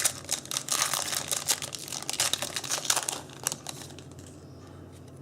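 Foil wrapper of a Yu-Gi-Oh booster pack crinkling as it is torn open and handled, a dense crackling rustle that dies down after about three and a half seconds.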